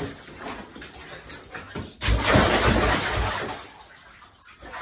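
Dog jumping into a water-filled bathtub: a loud splash about two seconds in, then water sloshing that dies away.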